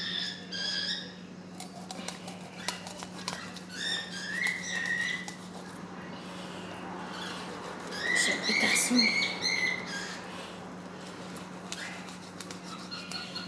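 A knife working along a raw salmon on a stone board, with small clicks and scrapes throughout. Three short, high squeaky sounds come near the start, about four seconds in and about eight seconds in, the last the loudest, over a steady low hum.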